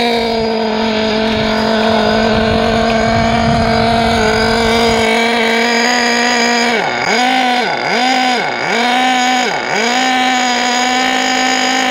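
Alpha Dragon nitro engine in an RC buggy, running rich during break-in, held at a steady raised speed. About seven seconds in, its note drops and recovers four times in quick succession as the throttle is eased off and gently opened again.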